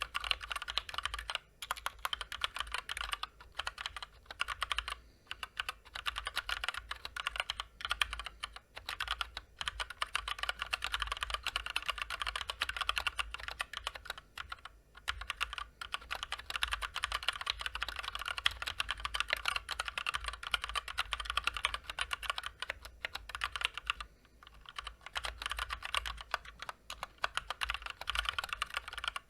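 Fast, continuous typing on a Drop (Massdrop) Ctrl high-profile mechanical keyboard with Gateron Clear linear switches, stock unlubricated switches and stabilizers, and PBT double-shot keycaps: a dense run of keystroke clacks with a few short pauses.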